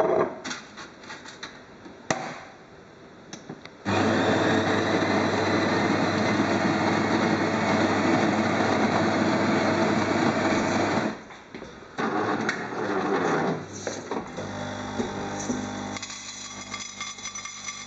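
Jura bean-to-cup coffee machine making a cup: its built-in grinder runs steadily for about seven seconds, starting about four seconds in, then stops suddenly. After a short pause the brewing unit and pump run with a lower, even hum through the end.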